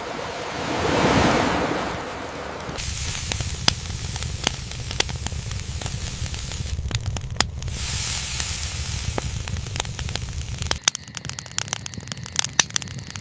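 A wave washes in, rising and falling over the first couple of seconds. Then a campfire crackles and pops with irregular sharp snaps over a low rumble.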